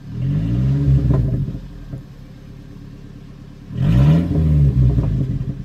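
Car engine revved twice from idle, heard from inside the cabin: the engine note climbs and falls back each time, the second rev starting about four seconds in.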